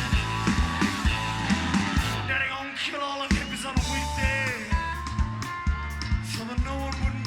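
Blues-rock band playing live: a steady drum beat with bass and electric guitar. A lead line slides up and down in pitch in the middle, and the beat briefly drops out about three seconds in.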